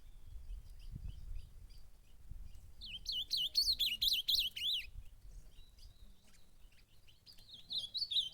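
Ultramarine grosbeak (azulão) singing: a loud run of rapid warbled notes lasting about two seconds, starting about three seconds in, and another run starting near the end, with soft chip notes between.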